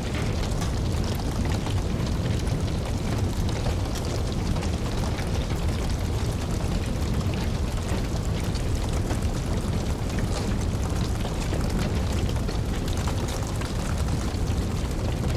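Wood fire crackling in a fireplace: many small, irregular pops and snaps over a steady low rumbling rush of burning.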